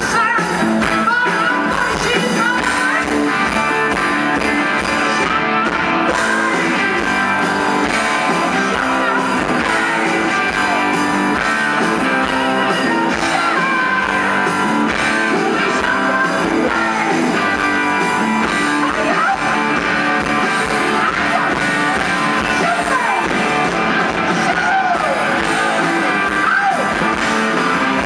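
A live hard rock band playing loudly: distorted electric guitars and drums with a male lead singer.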